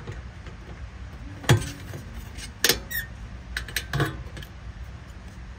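Sharp plastic clicks as the hybrid battery's service plug is worked as a key against a plastic high-voltage clip to release it: a few separate clicks, the loudest about a second and a half in and just before the three-second mark, with smaller ones around four seconds.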